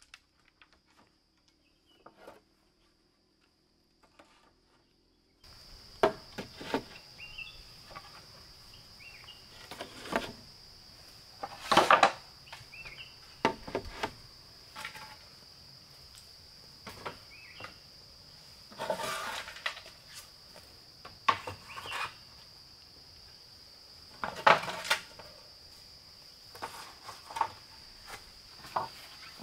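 Steady high-pitched insect drone over irregular knocks, clatters and rustles of objects being handled, with a few louder knocks spread through. For the first five seconds there are only faint ticks under the drone, then a background hiss comes in.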